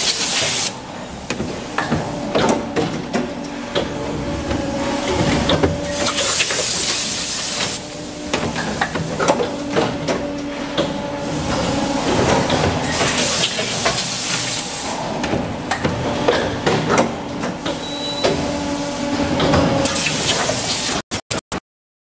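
A die-casting machine cycling: a steady machine hum with clanks and knocks as the die works, and a loud hissing spray blast at the die about every six to seven seconds. The sound cuts off abruptly in a few stutters near the end.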